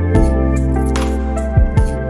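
Background music: sustained chords with a few drum thumps and cymbal-like hits.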